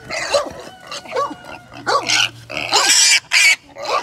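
Young feeder pig squealing in a run of loud, short screams while held down, the last ones the loudest; the squeals are protest at being restrained, not pain.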